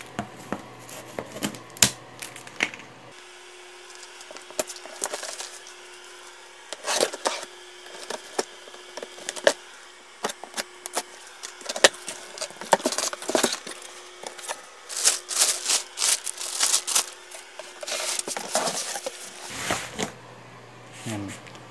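Scissors snipping the plastic packing straps on a cardboard printer box, then the cardboard flaps and the plastic wrapping inside being handled: scattered snips, knocks and rustles.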